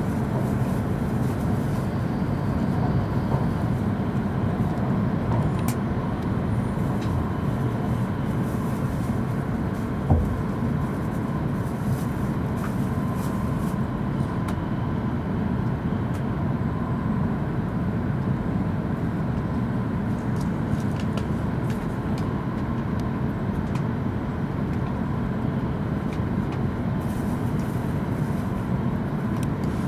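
Steady rumble and hiss inside the cabin of an E5 series Shinkansen running on the line, with one brief thump about ten seconds in.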